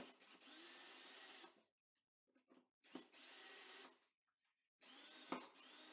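Ryobi cordless drill driving a screw into the wall to mount a towel hook: three short runs of the motor, each with a whine that rises in pitch as it speeds up. A sharp click comes in the second run and a louder one in the third.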